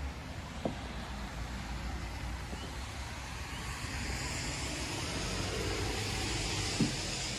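Street traffic below: a vehicle passing on a wet road, its tyre hiss swelling over a few seconds and then fading. Two soft knocks are heard, one early and one near the end.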